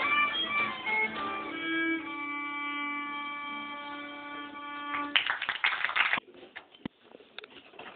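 Live music: a melody in short notes that settles on one long held note for about three seconds. About five seconds in, a loud burst of noise lasts about a second and cuts off suddenly, followed by faint scattered clicks.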